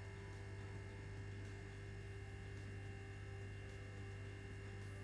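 Steady low electrical hum, with no other sound over it.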